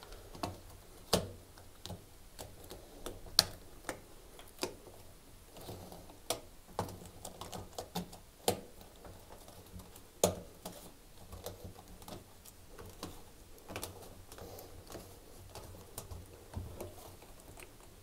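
Hands working a rubber washing machine door seal onto the rim of the cabinet's front opening: scattered irregular clicks and taps as the seal lip is pulled and pressed into place.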